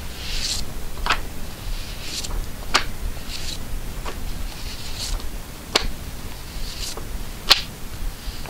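Vintage newsprint comic books being flipped through by hand: paper covers swish and rustle as each book slides off the stack, with four sharp paper snaps, the loudest near the end.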